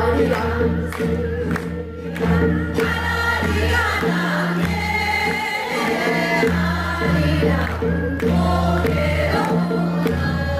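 A group of men and women singing a Korean folk song (minyo) together into microphones, over an instrumental accompaniment with a steady bass line.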